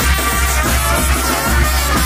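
Banda de viento (Mexican brass wind band) music playing, with a strong, pulsing bass line under sustained horn notes.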